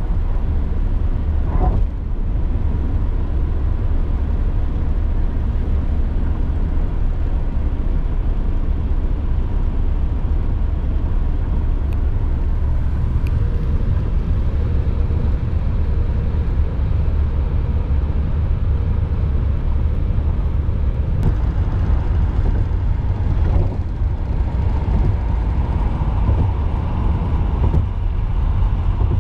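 Steady low rumble of a car's engine and tyres heard from inside the cabin while it drives at speed.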